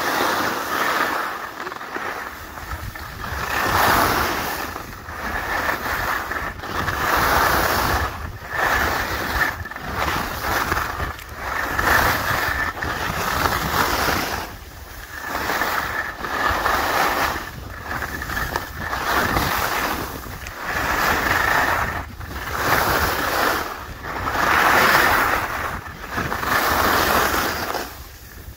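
Skis scraping and hissing over snow in repeated turns, swelling and fading about every two seconds, with wind rumbling on the microphone.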